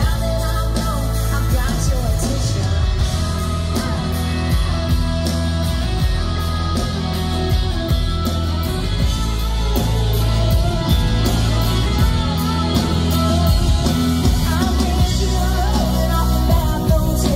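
Live country-rock band playing, a woman singing lead over acoustic and electric guitars, bass and a steady drum beat.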